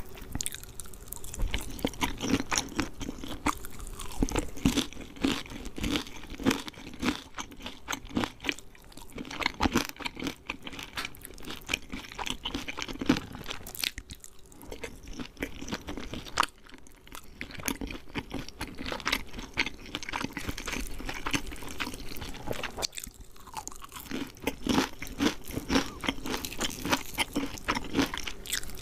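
Close-up crunching and chewing of crispy KFC fried chicken: dense, irregular crackles of the breaded coating being bitten and chewed, with a few brief pauses.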